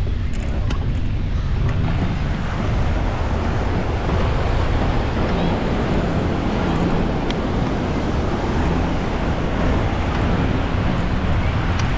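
Wind buffeting the microphone: a steady, loud rush with a deep rumble.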